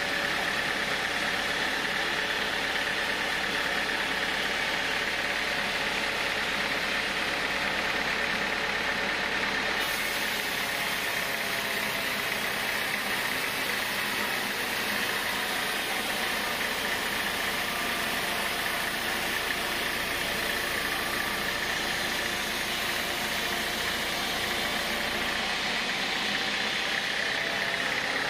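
Band sawmill running with its blade cutting lengthwise through a plank of hard acacia wood: a steady mechanical drone with a strong high-pitched band. A brighter hiss rides on top from about ten seconds in until about twenty seconds in.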